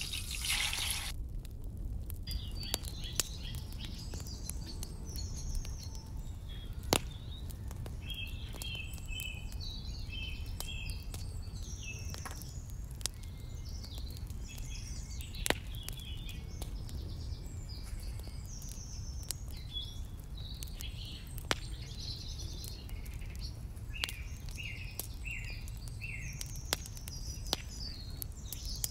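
Small birds chirping and singing on and off throughout over a steady low background rumble, with a few sharp clicks of small utensils. In the first second there is a loud brief hiss as hot fried onions in oil are poured into the dal.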